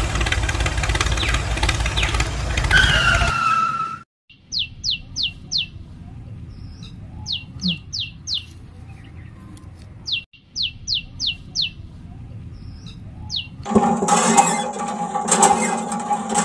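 An engine running for about four seconds, ending in a short falling squeal. Then a bird chirps in three bursts of about five quick downward-sweeping chirps, a few seconds apart. Music starts near the end.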